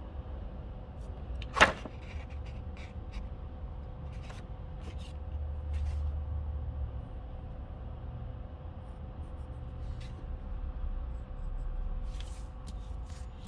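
Steady low room hum with a faint high tone through it. Over it come small taps and clicks of a plastic drafting triangle and pencil on a desk, with one sharp knock about two seconds in.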